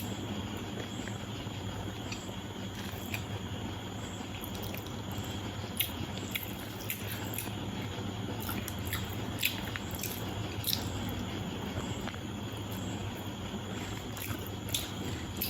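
Eating biryani: soft squishing of rice being mixed by hand and chewing, with scattered small clicks, over a steady low background hum.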